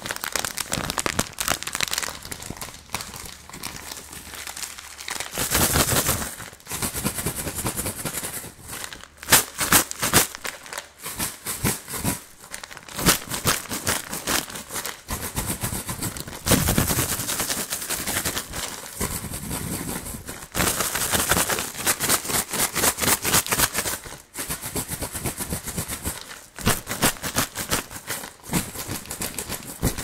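Plastic candy bag crinkled and shaken fast and hard close to the microphone, the candy inside rattling in quick dense bursts with a few brief pauses.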